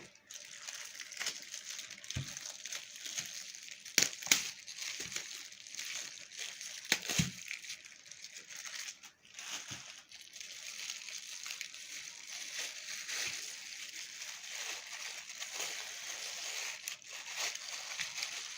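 Plastic bags crinkling and wet sloshing as salt-cured raya fish for malouha are handled and taken out after curing, with a few sharp knocks about four and seven seconds in.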